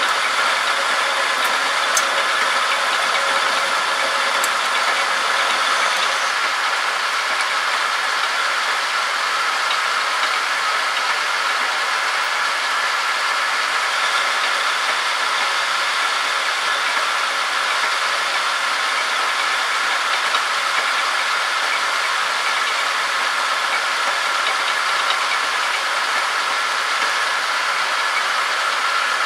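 Homemade metal lathe running under power with its cutter turning a metal shaft: a steady machine noise with a few held tones, unbroken throughout.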